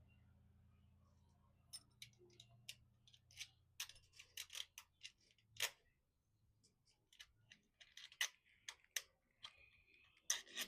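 Faint, irregular small clicks and taps of metal lock hardware and a screw being handled while a door deadbolt is fitted, with a short scrape near the end.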